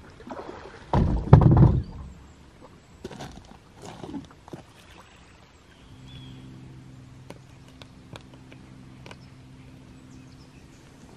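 Heavy thumps on the bass boat's deck as a man steps off it onto the bank, then a few faint clicks of steps on loose shale. A faint steady low hum comes in about halfway through.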